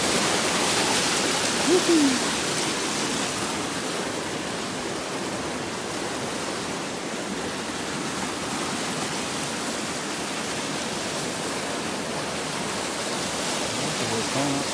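Flowing water rushing steadily, a little louder in the first few seconds, with a brief voice-like sound about two seconds in.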